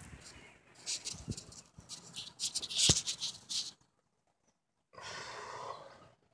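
Rustling and knocks of a phone being handled in a small boat, with one sharp knock about three seconds in, then a brief dropout and a steady hiss near the end.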